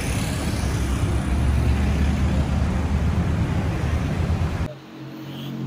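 Road traffic on a busy city street: a dense rumble of passing car engines and tyres. Near the end it cuts off suddenly to a quieter, steady low hum.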